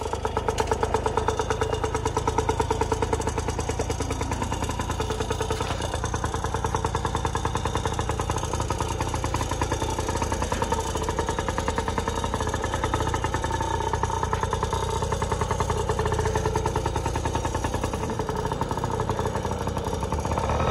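Yamaha PW50 mini dirt bike's 49cc two-stroke single-cylinder engine running as the bike is ridden along, its note rising and falling a little with the throttle.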